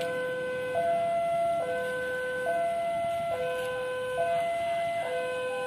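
Railway level-crossing warning alarm, an electronic two-tone signal alternating evenly between a lower and a higher note, each held a little under a second: the crossing is warning road traffic of an approaching train.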